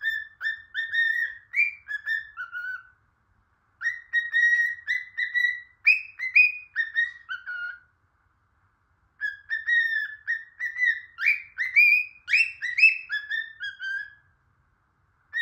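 Pet bird whistling phrases of short, clear notes, several a second, some sliding up and others falling. There are three phrases with brief pauses between them, and a fourth begins at the very end.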